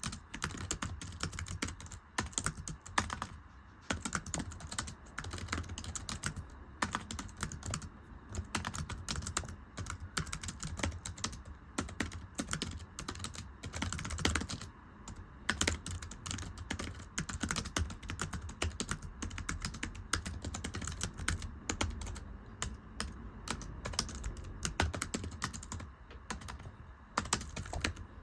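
Fast typing on a very thin, low-profile computer keyboard: a dense run of light, slapping key taps ("pechi-pechi"), broken by a few brief pauses.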